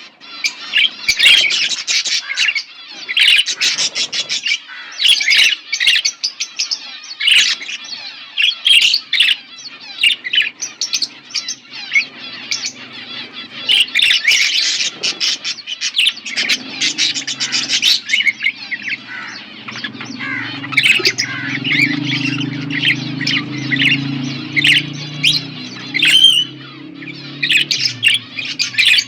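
Budgerigars chirping continually, many quick chirps crowding together, with a low steady hum underneath through much of the second half.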